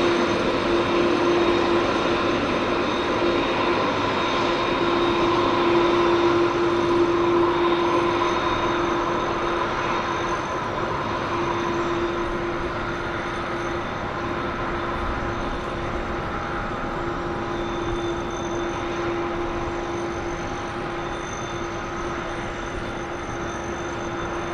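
Jet engines of a Boeing 767 taxiing at low thrust: a steady whine with a humming tone, loudest in the first few seconds and slowly fading after that.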